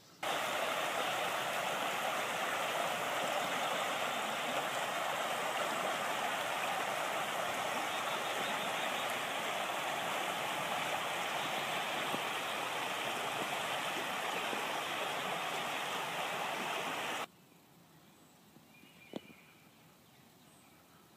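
Shallow creek running over a riffle: a steady rush of water that starts suddenly and cuts off abruptly about seventeen seconds in, leaving quiet outdoor background with a single faint tick.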